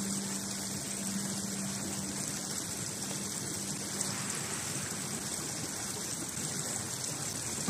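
Open water running over rocks at the edge of shore ice: a steady rush of flowing water.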